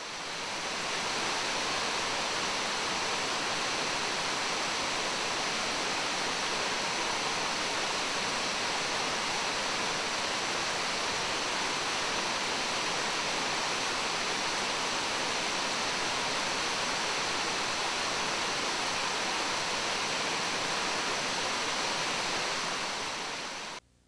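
Steady rush of Karakai Falls, a tall multi-tiered waterfall, its water cascading down rock ledges. The sound fades in at the start and fades out just before the end.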